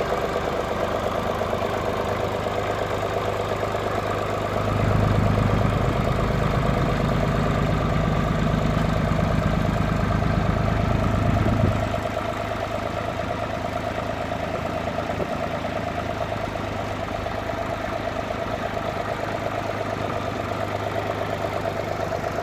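Tractor diesel engine running, louder and deeper from about five seconds in, then dropping back to a steadier, quieter run from about twelve seconds in as the tractor drives away.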